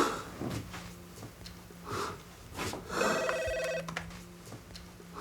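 Telephone ringing once, a short trilling ring about three seconds in, over a faint steady low hum.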